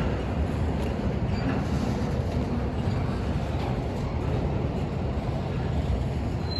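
Union Pacific freight train's loaded flatcars rolling past: a steady low rumble of steel wheels on rail, with a few faint clicks.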